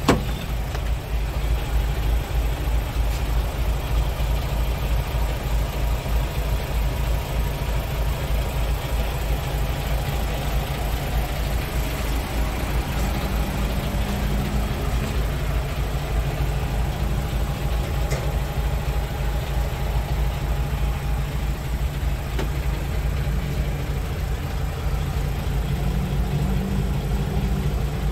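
Scania R520's V8 diesel idling steadily, a low, even running note with no change in engine speed.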